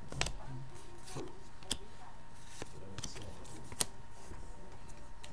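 Trading cards being handled and put down on a glass counter: several sharp clicks with soft rustling in between.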